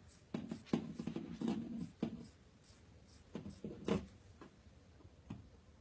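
Scissors cutting through a paper pattern: a run of short snips, about three a second, thinning out after about four seconds.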